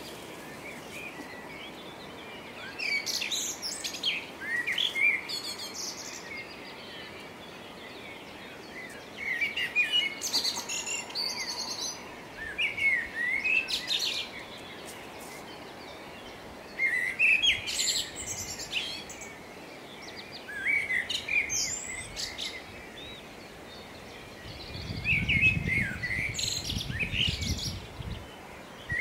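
Songbirds singing at dawn: bursts of quick, high, warbling song lasting two to three seconds each, with short pauses between them, over a steady faint hiss. A low rumble joins in for a few seconds near the end.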